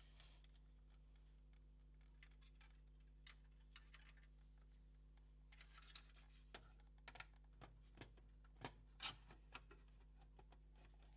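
Faint, scattered small clicks and taps of PS4 Pro console parts being handled during disassembly, clustered in the second half, over a low steady electrical hum.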